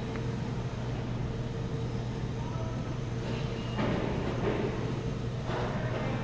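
Steady low hum of indoor walkway ambience, with a few brief, louder noises about three to four seconds in and again near the end.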